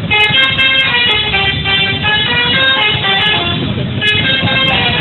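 Bus 'telolet' multi-tone musical horn playing a quick tune, its notes changing every fraction of a second, over a steady low background noise.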